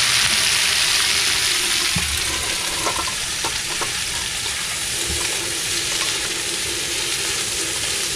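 Whole shrimp sizzling as they fry with garlic in an aluminium wok, stirred with a wooden spatula. The sizzle is a steady hiss that eases a little after about two seconds, with a few light spatula knocks about three seconds in.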